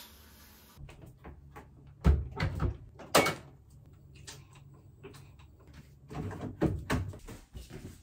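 Clunks and knocks of a front-loading washing machine being readied: its door shut and a detergent bottle handled, in two clusters of knocks a few seconds apart.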